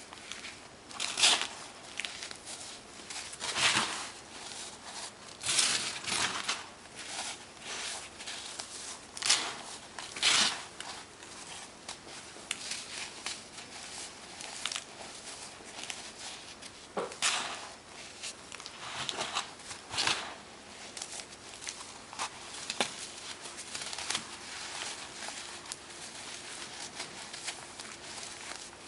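Chunks of baking soda being crushed, an irregular run of crisp crunches and crackles with a few louder crunches among many small ones.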